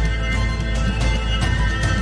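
Soundtrack music with sustained chords, a deep bass and a steady beat.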